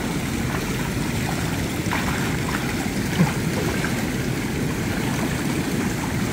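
Pool water splashing and churning as a swimmer kicks and strokes through it, over a steady rush of moving water.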